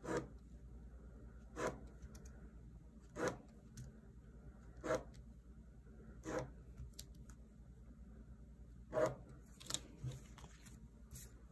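Handling sounds from decorating a paper planner: six short scratchy strokes about every second and a half, then a few lighter clicks near the end.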